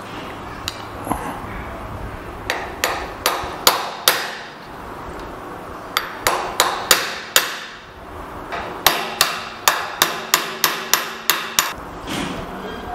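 Hammer striking a screwdriver set against the steering stem adjusting nut of a Suzuki GS150, knocking the nut loose: sharp metallic strikes in three runs, the last one faster, at about three a second.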